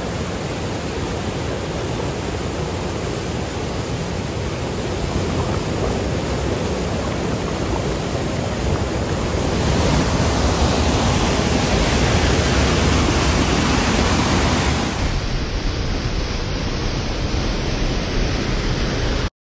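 Steady rush of a waterfall, louder for about five seconds in the middle and cutting off suddenly near the end.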